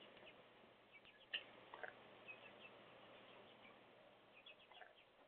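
Near silence: a faint steady hiss with a few soft, scattered ticks and chirps, one sharper tick about a second in.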